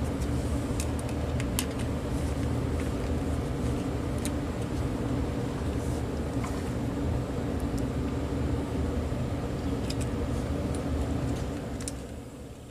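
A steady electric motor hum with scattered light clicks and taps over it, winding down near the end as the motor is switched off.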